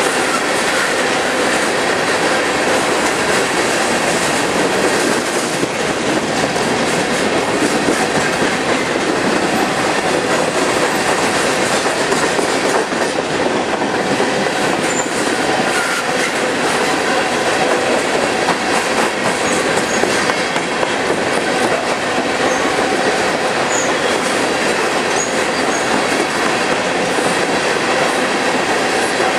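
Empty coal hopper cars of a Union Pacific freight train rolling past close by: a steady rumble and rattle of steel wheels on the rails, with a few brief faint high wheel squeaks about halfway through.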